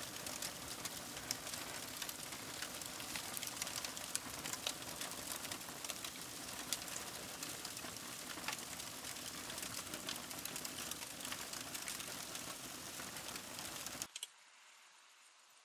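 Dense crackling: many sharp, irregular clicks over a steady hiss, cut off abruptly about 14 seconds in, leaving only a faint hiss.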